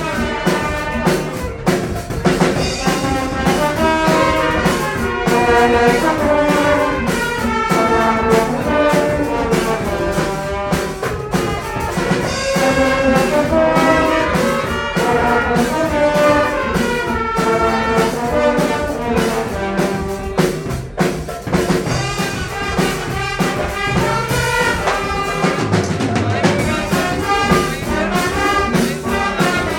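Brass band playing a tune, the brass horns carrying the melody over a drum kit keeping the beat.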